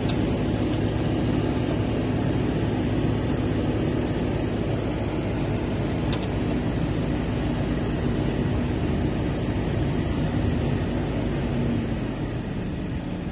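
A motor running steadily with a low, even hum that dies away about twelve seconds in, and a single sharp click about halfway through.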